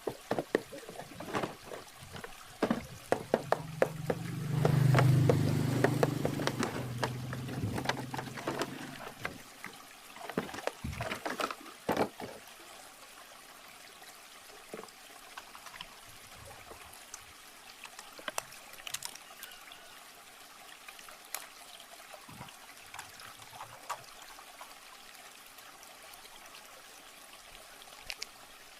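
Trickling, pouring water with many scattered clicks and taps of a toy RC car and its packaging being handled during unboxing. The clicks are densest in the first twelve seconds, with a louder stretch carrying a low hum about a third of the way in, then thin out to occasional taps over the water.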